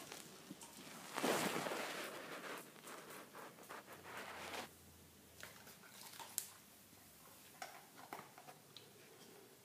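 Dog chewing and tearing at a raw vegetable: crunching and ripping with scattered clicks, loudest in a crunchy stretch about a second in.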